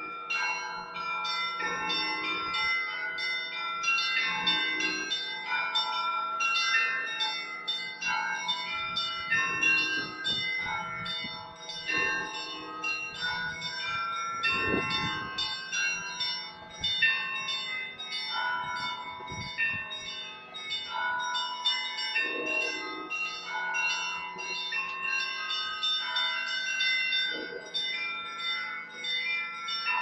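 Russian Orthodox monastery bells ringing in a continuous peal, many small bells struck in quick succession over the lingering ring of larger ones, with deeper strokes every few seconds. It is the ringing that calls the faithful to the all-night vigil service.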